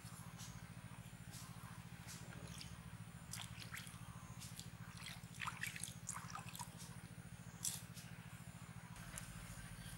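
A hand squeezing and kneading wet fishing bait in a steel bowl: soft irregular squishes and small clicks, with a sharper click a little before eight seconds in.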